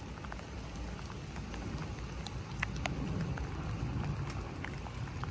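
Light rain: scattered, irregular drop ticks over a steady low outdoor rumble.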